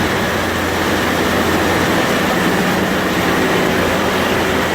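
Steam-powered sawmill machinery running: a steady mechanical din with a faint high whine held level throughout.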